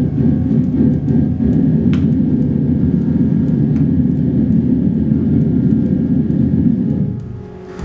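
Loud, steady low rumble with a few faint clicks above it, fading down about seven seconds in.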